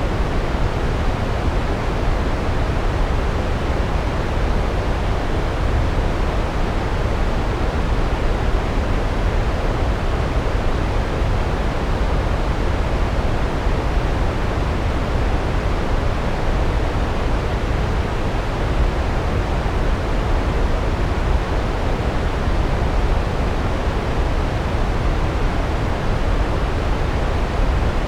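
Large waterfall's water crashing down onto rocks, a steady, even roar heaviest in the low range.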